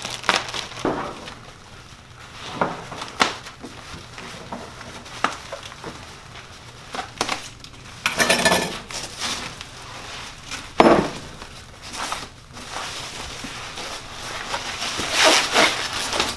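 Plastic packaging being cut and pulled open by hand: crinkling plastic wrap, bubble wrap and foam sheeting, with scattered clicks and knocks as things are handled on a wooden workbench. The loudest rustles come about eight seconds in, near eleven seconds and near the end.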